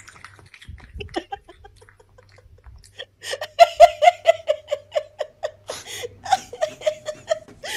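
A woman laughing: a fast run of short, even-pitched 'ha' pulses that starts about three seconds in and goes on for several seconds, after a quieter stretch with faint clicks.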